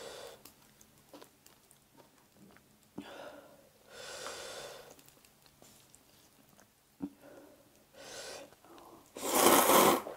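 A person eating spicy instant noodles: soft breathy sucking sounds and a few faint clicks, then one loud, long slurp near the end.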